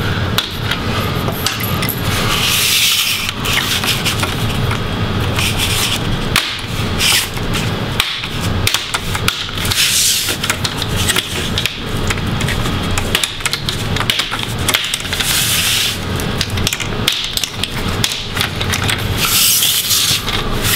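The plastic front bezel of an Acer Nitro 5 laptop display being pried off by hand, its snap clips popping loose along the edge. The popping comes as a run of clicks and crackles, with louder spells about 3, 10, 15 and 19 seconds in.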